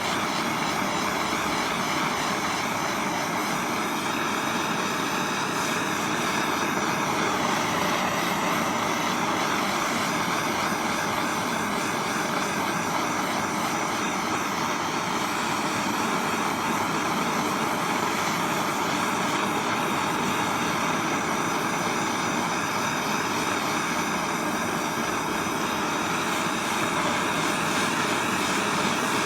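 Handheld gas torch burning with a steady, even hiss as it heats a brake wheel cylinder to free a frozen piston.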